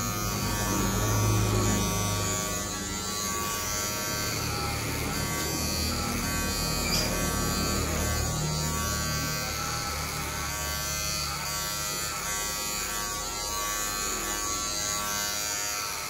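Electric hair clippers buzzing steadily while cutting hair for a fade.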